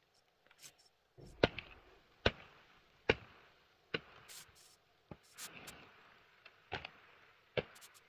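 A blade chopping down onto a wooden chopping surface in steady sharp strokes, a little under one a second, with a short lull of lighter hits in the middle. This is typical of cutting up plants or vegetables for animal feed.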